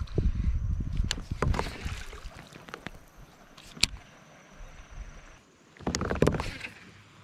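Handling noise from an angler in a kayak working a baitcasting rod and reel. Low rumbling bumps come in the first two seconds, then a few sharp clicks, then a loud rustle about six seconds in as a shirt sleeve brushes across the microphone.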